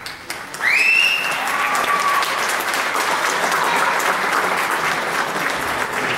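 Audience applause that swells in sharply under a second in and stays loud and steady, with a high rising call cutting through about a second in.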